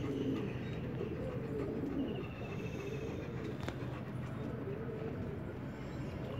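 A flock of Madrasi pigeons cooing, a steady low murmur of overlapping coos. A faint, high, fast-pulsing trill comes in about two seconds in, and there is a single sharp click near the middle.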